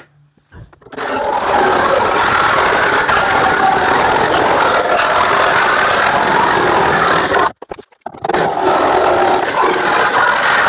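Reciprocating saw with a fine 150 mm metal-cutting blade cutting through the steel side panel of an MAN TGE van, starting about a second in. It stops briefly about three quarters of the way through, then carries on cutting.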